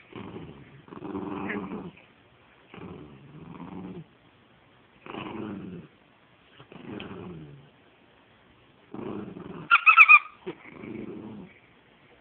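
A small rat terrier–Chihuahua mix growling in short bouts, about half a second to a second each, during tug-of-war play with a stuffed toy. A brief, loud high-pitched squeal cuts in about ten seconds in.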